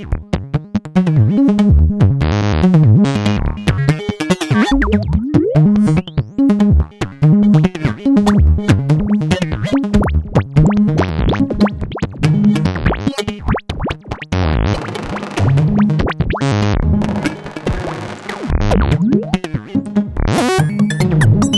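Make Noise modular synthesizer patch playing a rhythmic pattern of short gated sawtooth notes over low sub-oscillator notes, the tone shifting from note to note as a Jumbler module rotates the signal through different filters and effects. A bright, noisy burst sounds near the end.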